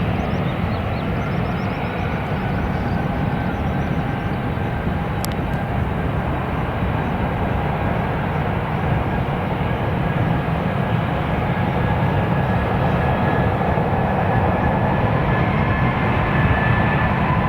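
Jet airliner engines running: a steady rushing noise with a faint thin whine, slowly growing louder.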